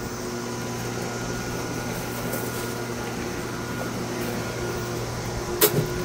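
A neodymium-magnet fan mount snaps onto a steel sheet with a single sharp clack about five and a half seconds in, over a steady mechanical hum.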